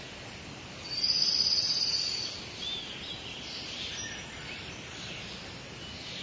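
Outdoor ambience with small birds giving short, high chirps, and a loud, high buzzing trill about a second in that lasts just over a second.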